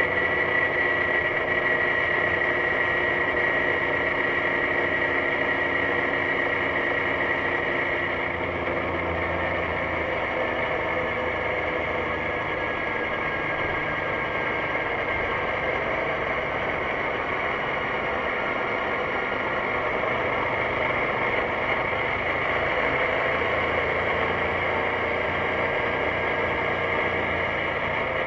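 BMW C650GT maxi-scooter's 647 cc parallel-twin engine running while riding, a steady hum with a high whine that fades out about eight seconds in, and tones that drift slowly up and down in pitch as the speed changes.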